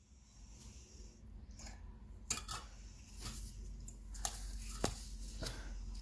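Metal teaspoon clinking and scraping against a small plastic cup while stirring icing sugar and lemon juice into icing: a string of irregular light clicks, busier in the second half.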